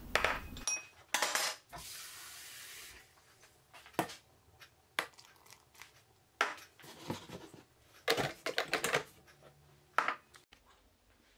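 Clinks and knocks of a glass and utensils against the stainless steel mixing bowl of a Thermomix kitchen machine, scattered singly and in small clusters, with a couple of seconds of hiss early on as dough ingredients go in.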